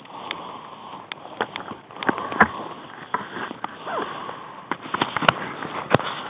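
Footsteps and rustling through tall dry grass and brush, close to the microphone, with many small snaps and a couple of sharper cracks about five and six seconds in.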